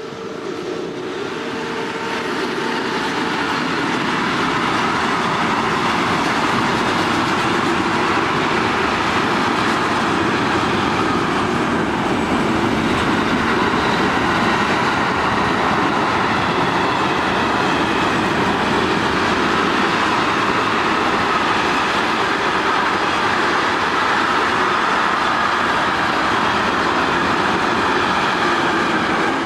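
Container freight train hauled by two electric locomotives passing close by: a steady rumble and rattle of wagon wheels on the rails. It swells over the first few seconds as the locomotives come up, then stays loud as the wagons go by.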